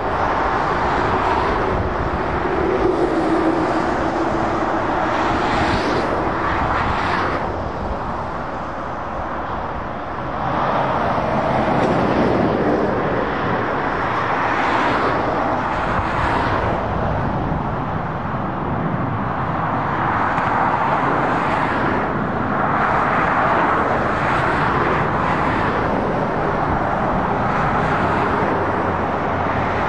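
Motorway traffic: lorries and cars passing one after another, the tyre and engine noise swelling and fading every few seconds.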